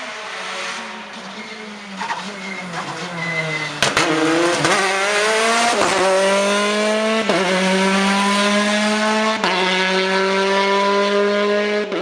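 Rally car engine at full throttle, rising to loud about four seconds in with a sharp crack, then going up through the gears: each shift a sudden drop in engine pitch followed by the revs climbing again.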